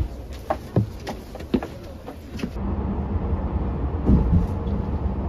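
Footsteps on the steps of an idling bus, short knocks over a low engine rumble. About halfway through it cuts to the steady drone of the bus driving on the highway, heard inside the cabin.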